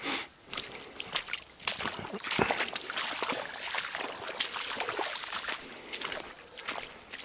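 Footsteps in boots wading and sloshing through shallow floodwater, an irregular run of splashes and crackles.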